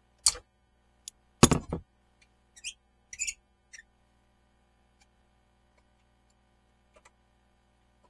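A run of sharp clicks and knocks from tools and parts being handled during spark-plug work, the loudest about a second and a half in, with a few light metallic clinks around three seconds and a last small click near the end.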